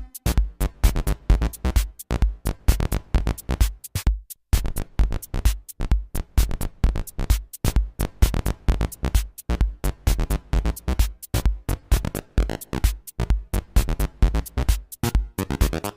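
Electronic jam: Eurorack drum modules play a steady, fast beat with heavy kick hits under a sequenced line from a Behringer MS-1 analog monophonic synthesizer with a little reverb. The beat drops out briefly about four seconds in.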